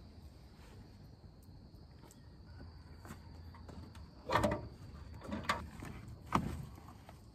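A large plastic storage box being handled and shifted on a kei truck's bed: three separate knocks and scrapes about four, five and a half and six and a half seconds in. A faint steady high-pitched tone runs underneath.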